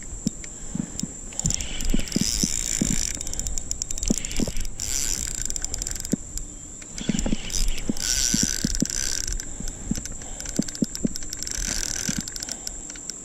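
Fishing reel being cranked in several spells of whirring, clicking retrieve.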